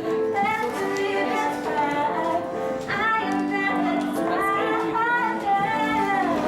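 Background pop music with a woman singing over sustained keyboard-like chords.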